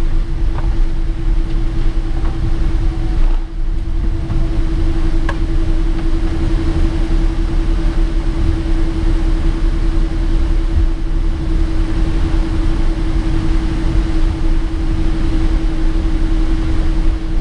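Cabin noise of a Boeing 777-200ER rolling slowly off a wet runway after landing: a steady low rumble from the Pratt & Whitney PW4090 engines and the wheels, with a steady hum over it. The rumble dips briefly about three and a half seconds in.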